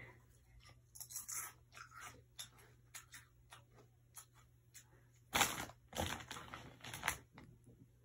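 Rustling and light clicks of a phone being handled, with three louder rustles about five to seven seconds in.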